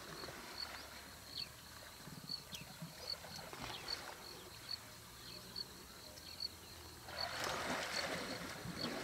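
African elephant bulls moving and splashing in a waterhole, with a louder burst of water splashing about seven seconds in. A high insect chirp repeats about every two-thirds of a second.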